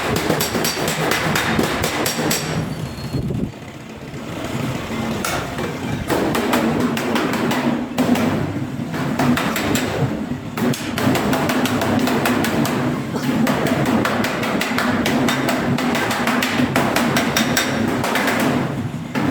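Hammer striking steel sheet metal in rapid, repeated blows, over a steady hum.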